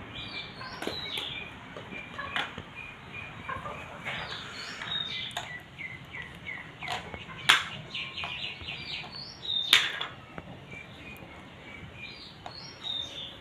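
Small birds chirping in short repeated notes throughout, with scattered sharp clicks of plastic toy cookware being handled. The two loudest clicks come about seven and a half and ten seconds in.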